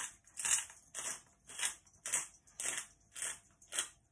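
Hand-twisted pepper mill grinding black peppercorns: a gritty crunch with each twist, about eight in a row at roughly two a second.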